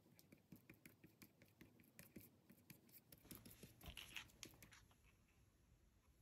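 Faint paper-crafting sounds: a run of quick light clicks and scratches of paper being handled, with a louder rustle a little past the middle, stopping about three-quarters of the way through.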